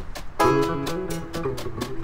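A small band playing an up-tempo old-time tune: banjo picking a quick run of notes over electric bass, with a snare drum struck on the beat.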